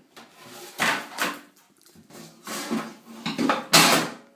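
A spoon scraping and scooping chocolate-coated cornflake mixture in a mixing bowl, in about five short strokes, the loudest near the end.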